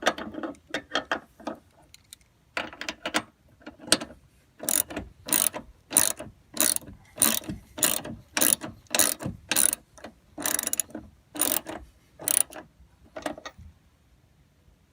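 Ratchet wrench clicking in a long run of quick back-and-forth strokes, about one and a half a second, tightening the half-inch nut on a truck door hinge pin. The strokes stop a couple of seconds before the end.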